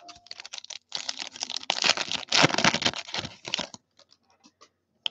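Wrapper of a 2019 Panini football card pack being torn open and crinkled. A dense crackling starts about a second in and lasts nearly three seconds, followed by a few light clicks as the cards are handled.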